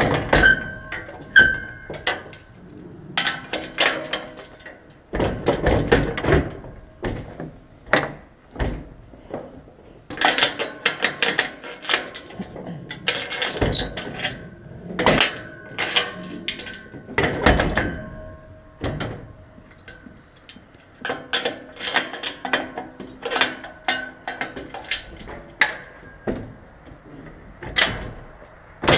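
Irregular knocks, clanks and rattles of metal gear being handled, some with short ringing clinks, in clusters with brief pauses between them.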